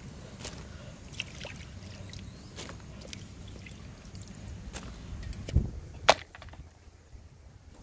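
Steady low outdoor rumble with a few light clicks. About five and a half seconds in comes a heavy thump, then a sharp knock of stone against stone as a large rock is lifted from a pebbly riverbank, and the rumble dies down.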